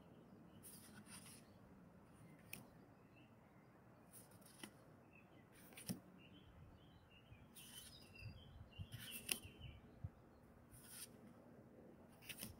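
Faint soft swishes of playing-card-sized oracle cards sliding off one another as they are moved through the deck, one every second or two, with faint bird chirps in the background.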